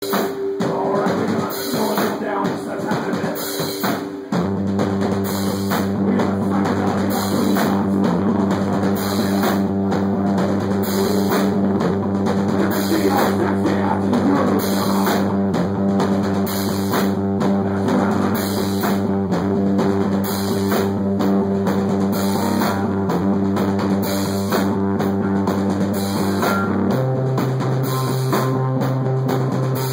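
Live stoner metal band playing: electric guitar and bass holding heavy low notes over a rock drum kit. The full band comes in about four seconds in, and the low note shifts near the end.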